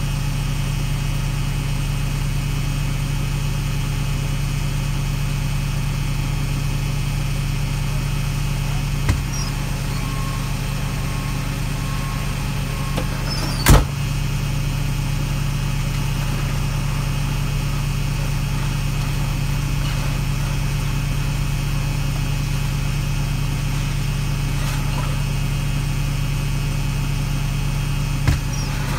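Truck engine running at a steady speed, with one sharp knock about halfway through and two fainter clicks.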